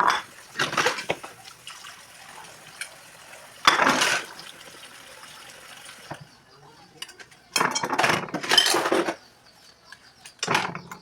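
Kitchen sink work: water splashing in several short bursts while dishes and utensils knock and clink.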